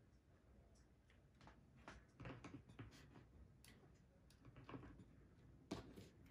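Faint irregular clicks, taps and rustles of hands handling and stacking stiff bow pieces on a craft cutting mat, with a sharper click a little before the end.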